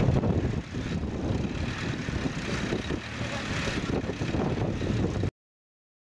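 Vintage tractor engines running steadily under load while pulling ploughs, cutting off suddenly about five seconds in.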